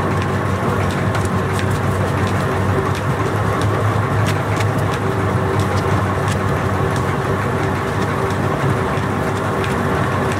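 Motor-driven dough kneading machine running steadily with a constant hum as its rotating shaft churns a mass of rice-noodle dough in a steel hopper, with irregular light clicks over the hum.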